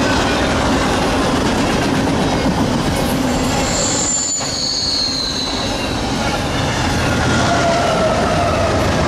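Double-stack container train of well cars rolling past at close range, a continuous heavy rumble and clatter of steel wheels on rail. About four seconds in, a high-pitched wheel squeal rises out of it and slides slightly down in pitch. A lower squeal follows near the end.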